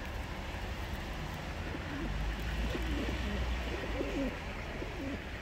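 Oriental frill pigeons cooing: a handful of rising-and-falling coos starting about two seconds in, over a steady low rumble.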